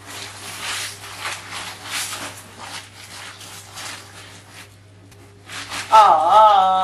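Dried crayfish pouring out of a plastic-lined sack into a plastic basin: a dry rustling patter with the plastic bag crinkling, easing off after about four seconds. About six seconds in, a loud wavering vocal note cuts in.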